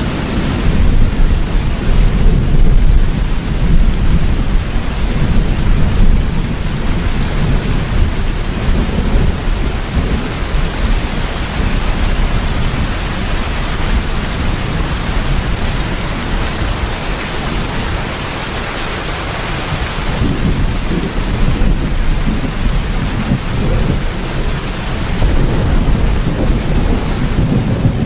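Steady heavy rain with low, rolling thunder, swelling in the first few seconds and again near the end.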